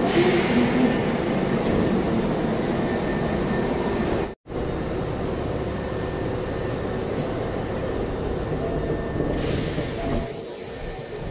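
Hankyu 7300 series electric train running through a subway tunnel, heard from inside the car: a steady rumble of wheels and running gear with faint steady motor tones. The sound cuts out for an instant about four seconds in and eases off a little near the end.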